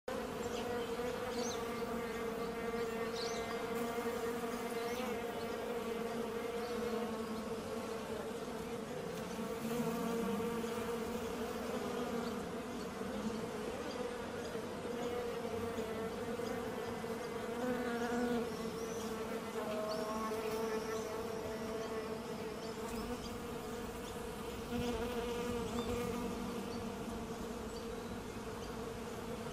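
Honeybees flying in numbers around the hive entrances of a bee house: a steady, many-voiced hum that swells and wavers slightly.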